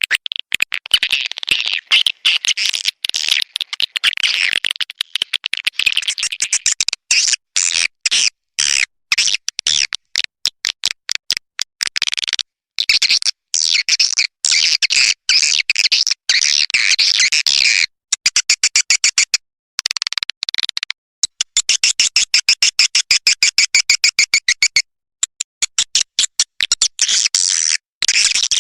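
Recorded swiftlet calls played as a lure to draw swiftlets into a nesting house: dense, rapid high twittering chirps and clicks in quick pulses, broken by brief gaps.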